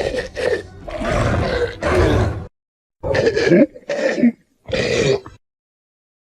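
Skar King's ape-like monster vocalizations, a designed film sound effect: a string of short grunting, growling roars, each a second or less with brief pauses between them, stopping shortly before the end.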